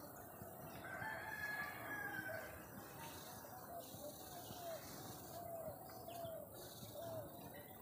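A rooster crowing faintly: one longer call about a second in, followed by a run of short, repeated calls.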